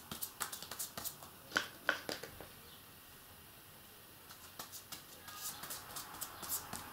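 A small glue brush dabbing and stroking thick, tacky two-part dinghy adhesive onto a round patch: a run of light sticky clicks and ticks, the loudest about two seconds in, a lull around three to four seconds, then more light ticks.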